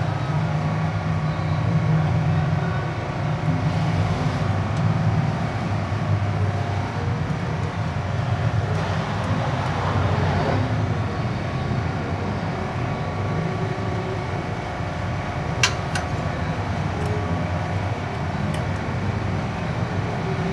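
Steady low mechanical drone, like an engine running nearby, with a few sharp clicks about three-quarters of the way through.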